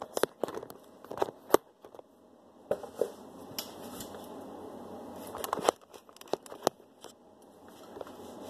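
Handling noise as the camera is picked up and moved: scattered knocks, rubs and rustles on its microphone, the sharpest knock about one and a half seconds in.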